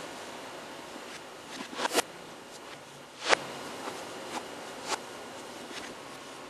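Shoes scuffing and stepping on a carpeted floor: a few brief, sharp scrapes and thuds, the loudest about two, three and five seconds in, over a steady hiss.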